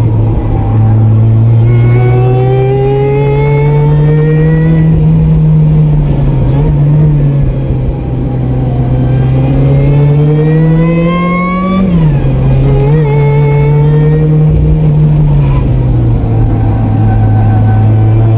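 Supercharged Mazda Miata's four-cylinder engine under load on track, its pitch climbing and easing as it pulls through the revs. The pitch drops suddenly about twelve seconds in, then climbs again.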